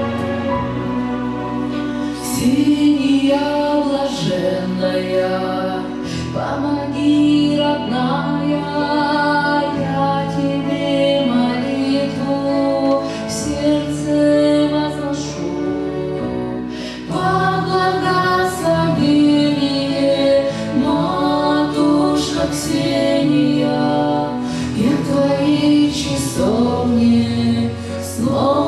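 A woman singing an Orthodox spiritual song into a microphone over a sustained instrumental accompaniment, her voice entering about two seconds in.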